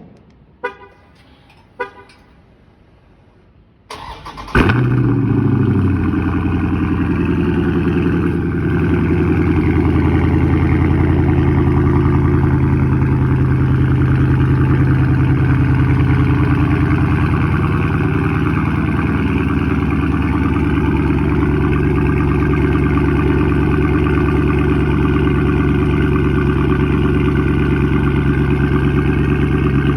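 Dodge Charger Scat Pack's 392 HEMI V8 being started: two short chirps, then a brief crank about four seconds in and a loud flare as it fires. It then settles into a steady, deep idle.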